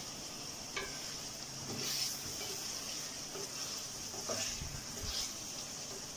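Chicken, tomato and spice masala sizzling steadily in a steel pot, with a few soft scrapes as a wooden spatula stirs it against the pot.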